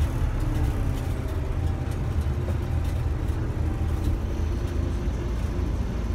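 Scania Omnidekka double-decker bus with a Scania DC9 diesel and ZF gearbox, heard from inside the passenger saloon while under way: a steady low engine and drivetrain rumble.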